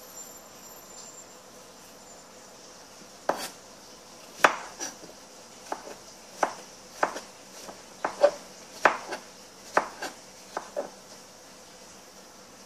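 A kitchen knife chopping vegetables on a plastic cutting board: about fifteen irregular knocks of the blade hitting the board, starting about three seconds in and stopping near the end.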